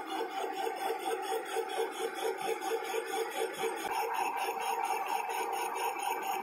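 Metal-cutting lathe running under cut while turning a large metal disc: a steady machine hum with a rapid, even pulsing, about five beats a second.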